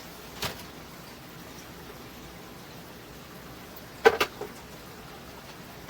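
A few light knocks and clicks as packages and containers are handled and set down on refrigerator shelves: one click about half a second in and two or three sharper knocks around four seconds in, over a steady low hiss.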